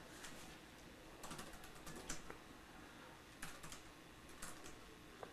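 Faint typing on a Dell laptop keyboard: short runs of keystrokes with pauses between them.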